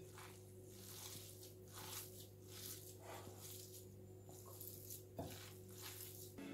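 Faint, soft squishing and rustling of a hand mixing a moist noodle, tofu, egg and vegetable filling in a glass bowl, with one light knock about five seconds in, over a low steady hum.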